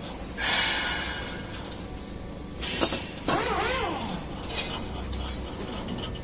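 Metal clinking and scraping as a spring-loaded mould bolt on a hydraulic block machine is unscrewed by hand. There is a sharp click a little before the middle, then a brief wavering squeak.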